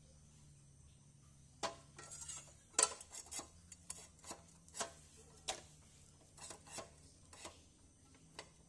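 Light metallic clinks and knocks at an uneven pace, as small metal pieces or tools are handled and set down, over a faint steady hum.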